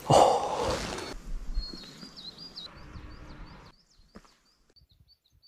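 A small bird singing a run of short, high chirps, about four a second. It sings over a brief noisy rush at the start, the loudest sound here, which fades away within the first few seconds.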